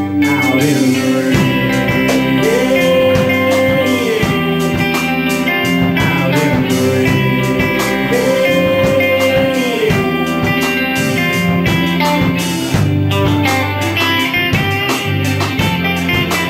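Rock band playing live: electric guitars over bass and drums. Twice a long held note bends up, holds, and slides back down.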